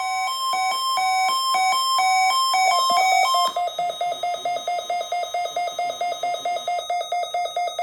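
Electronic alarm tones. At first a buzzy tone alternates between a higher and a lower pitch. About three and a half seconds in it changes to a rapid beeping on the lower pitch, several beeps a second.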